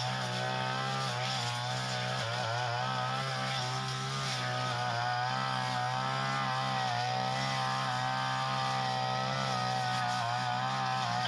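Small engine of a Tanica grass cutter running fast and continuously, its pitch wavering a little in the first few seconds, then holding steady.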